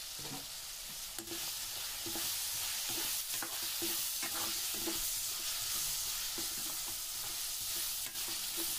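Chopped capsicum and onions sizzling in hot oil in a nonstick kadai, with a plastic spoon stirring and scraping the vegetables around the pan. The sizzle cuts off suddenly near the end.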